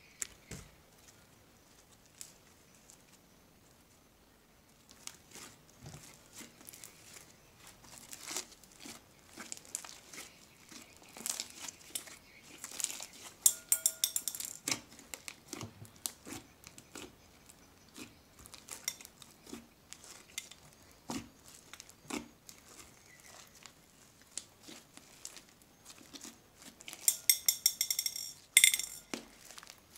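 Multicoloured slime being kneaded and stretched by hand: sticky squelches and crackles, with dense runs of rapid clicking about halfway through and again near the end.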